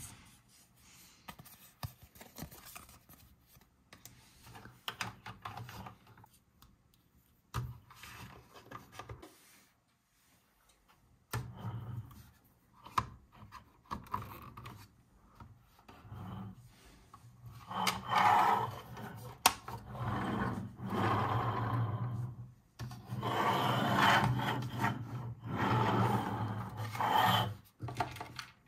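Hands handling a plastic Bluey toy bus and its figures: scattered light clicks and taps as figures are set into the seats, then, from about two-thirds of the way in, long rubbing, rumbling stretches as the bus is pushed along the tabletop.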